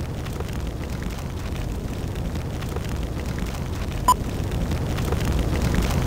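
Film countdown leader playing on a TV: one short, high beep about four seconds in, over a steady low rumble and hiss.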